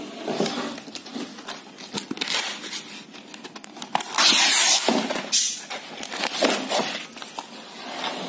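Painted canvas being ripped by hand off a wooden stretcher frame, in several rasping tearing pulls. The longest and loudest rip comes about four seconds in.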